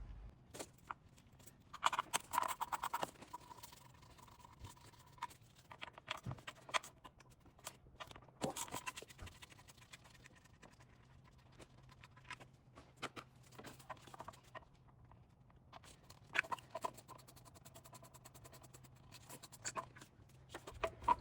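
Hand tools working engine bolts loose: rapid clicking and scraping in four or five short bursts, with quiet gaps between.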